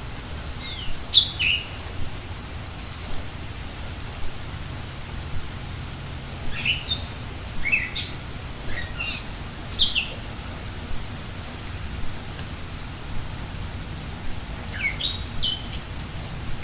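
Steady rain falling, with a bird calling over it in three short bursts of quick, high, downward-sweeping notes: near the start, in the middle and near the end.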